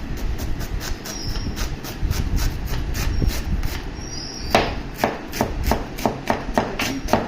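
Kitchen knife slicing a cabbage on a cutting board: a quick, even run of chops, about four a second, striking harder from about halfway through.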